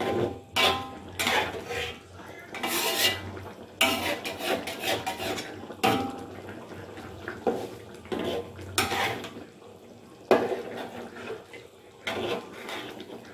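A spatula scraping and knocking against a wok as fish curry is stirred and the fish pieces are turned, in irregular strokes, with one sharp knock a little past ten seconds the loudest.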